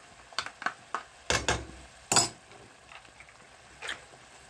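Spoon knocking and clinking against a plastic tub and a metal kadai as masala paste is scraped into the pan: a few separate knocks, the loudest about two seconds in.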